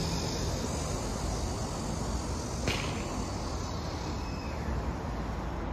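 Outdoor city street ambience: a steady rumble of traffic, with one brief sharp click a little under three seconds in.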